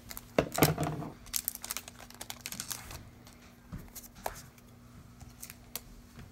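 Scissors snipping the top off a trading-card booster pack, then the pack wrapper crinkling and rustling as it is handled. The loudest snipping and crinkling comes about half a second to a second in, and then thins to scattered small clicks.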